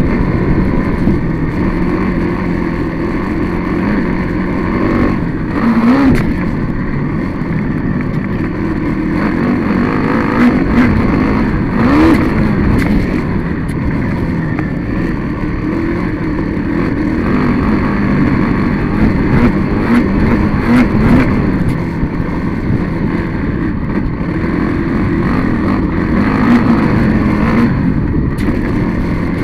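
Engine of a small dirt-track racing vehicle heard onboard, running hard and loud. Its pitch rises and falls, climbing again every several seconds as it pulls out of the turns.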